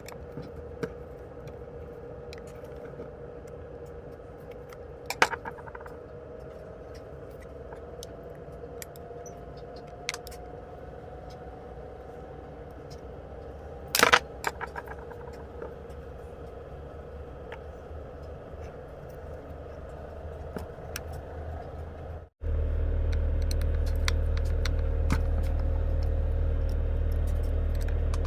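Scattered small clicks and taps of tools and parts being handled at a workbench over a steady hum, with two sharper clicks about 5 and 14 seconds in. About 22 seconds in, the sound cuts to a loud, steady low rumble.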